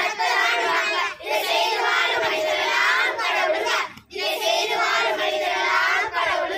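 A group of children singing a Tamil song loudly in unison, with brief pauses about a second in and about four seconds in.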